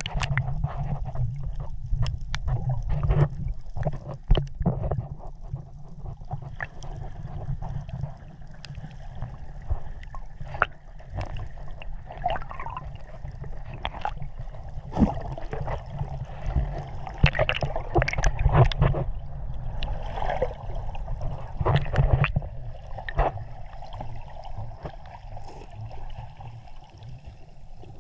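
Water sloshing and splashing close to the microphone, with a heavy constant low rumble and many short, sharp splashes scattered throughout.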